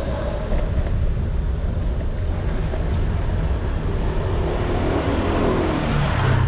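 Steady low rumble of riding an electric kickboard over wet paving stones, with some wind on the microphone. Near the end a motor scooter's engine comes up close alongside and grows louder.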